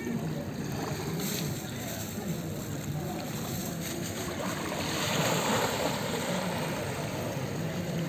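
Small sea waves washing onto a sandy, shell-strewn shore in a steady wash, which grows louder for a moment about five seconds in.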